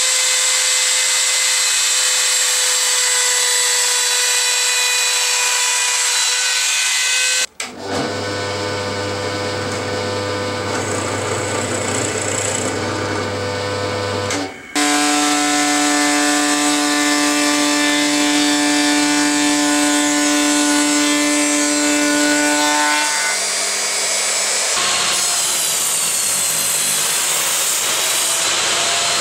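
Woodworking power tools running through softwood in a string of cut-together shots: a trim router whining as it shapes an edge, then a drill press boring, then a table saw. Each is a steady machine whine, and the sound changes abruptly at each cut.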